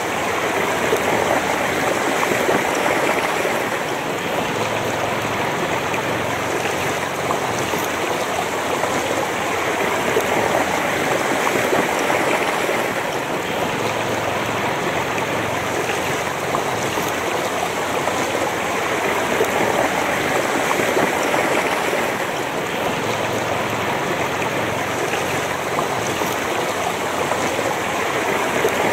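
Shallow river flowing over stones, a steady rush of moving water picked up right at the water's surface.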